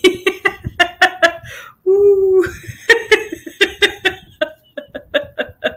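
A woman laughing hard in rapid repeated bursts, with a short held vocal note about two seconds in before the bursts resume.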